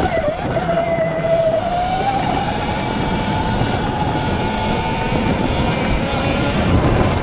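Electric dirt bike's motor whining while riding, its pitch dipping just after the start, then rising and holding steady, over a dense low rumble.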